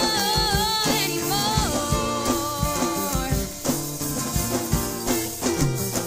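Background pop song: singing over a band with a steady drum beat.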